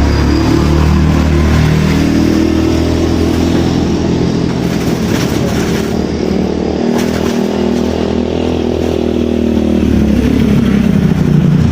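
A small engine running steadily, its pitch drifting up and down a little, like a motorcycle engine.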